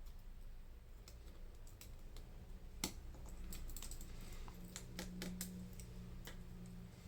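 Irregular small clicks and taps of a precision screwdriver and tweezers on the tiny screws and metal bracket inside an iPhone 8 being reassembled, the sharpest click about three seconds in. A low steady hum joins about halfway through.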